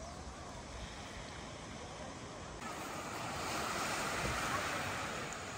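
Small sea waves washing against a rocky, pebbly shore in a steady wash; about two and a half seconds in it becomes louder and swells, then eases slightly toward the end.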